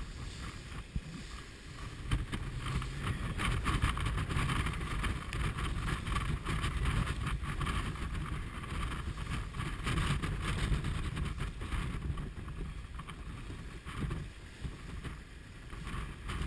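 Wind buffeting the microphone in gusts over the rush of water past the hull of a J30 sailboat heeled hard, sailing upwind.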